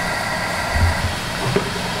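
Steady rushing noise of a busy street-food kitchen, with a single dull low thump near the middle.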